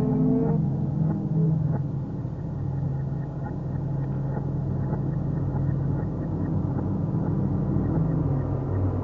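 Dark horror-ambience drone: a low, steady rumble with sustained deep tones and faint crackling clicks over it.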